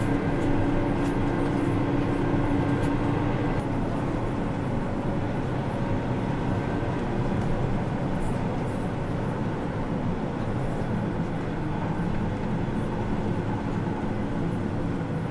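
Farm tractor running under load, heard from inside its cab: a steady engine and drivetrain drone. A humming tone in it stops about three and a half seconds in.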